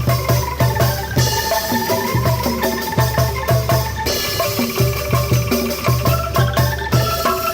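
Angklung ensemble playing a rhythmic tune: shaken bamboo tubes rattle out repeated tuned notes over a steady low beat.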